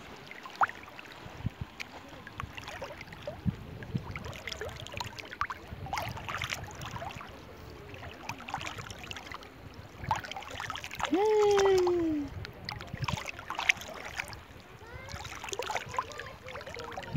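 Shallow seawater sloshing and splashing right at the microphone, which is held just above the surface, with many small splashes and droplet sounds. About eleven seconds in, a person's voice calls out once in a falling note lasting about a second, the loudest sound here.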